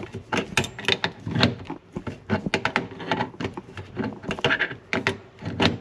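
Adjustable wrench working the nut of a braided water supply line at a chrome angle stop valve: a quick, irregular run of metallic clicks and knocks, the sharpest one at the very start.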